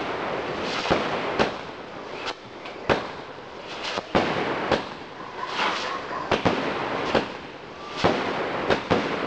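Aerial fireworks bursting in quick succession: sharp bangs about every half second to second and a half, with crackling and fizzing from the bursts in between.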